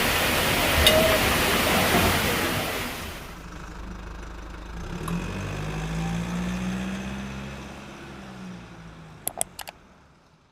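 A loud steady rushing noise that cuts off abruptly about three seconds in, then a vehicle engine humming low, swelling and fading away, with a few sharp clicks near the end.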